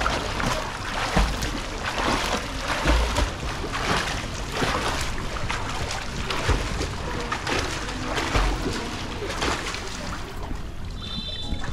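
Swimmer doing front crawl, arm strokes and kicks splashing the water in a steady rhythm of about one to two splashes a second.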